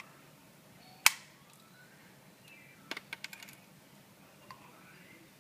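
Wire cutters snipping the soldered leads of a resistor on a circuit board: one sharp snip about a second in, a patter of small clicks and taps around three seconds in, and another sharp snip at the very end.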